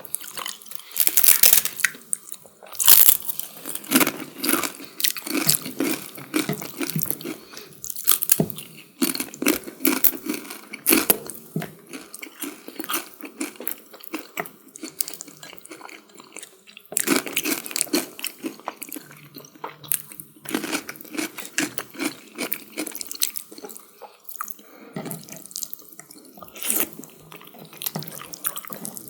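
Close-miked wet eating sounds of chicken curry and wet biryani rice: moist chewing, lip smacks and mouth clicks in an irregular, crackling stream, with louder bursts near the start and about two-thirds of the way through.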